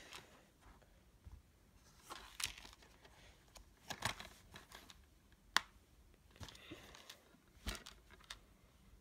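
Plastic DVD cases being handled: scattered crinkles, taps and clicks, with one sharp click about five and a half seconds in.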